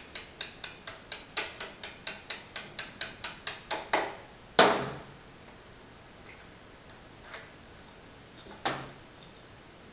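Small hammer tapping a punch to drive the clevis pin out of a BMW R1200GS's stock foot peg: a quick, even run of light metallic taps, about five a second, ending in one harder strike a little under five seconds in. A few fainter clicks follow, the loudest near the end.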